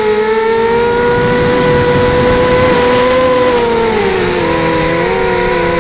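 QAV280 quadcopter's electric motors and propellers whining over a rush of air, heard from the onboard camera. The pitch holds fairly steady, then past the middle splits into several wavering tones as the motors change speed. A thin, steady high whistle runs underneath.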